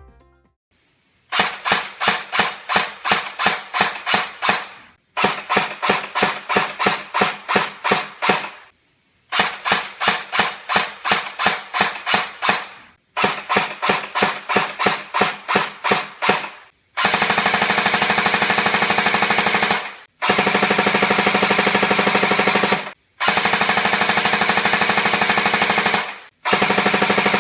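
S&T TAVOR-21 electric airsoft gun firing: four strings of rapid single shots, several a second. From about halfway come four long continuous full-auto bursts, the gearbox cycling with each shot.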